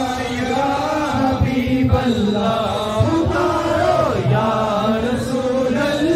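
Men's voices chanting devotional verses in a continuous melodic chant, with a few brief knocks.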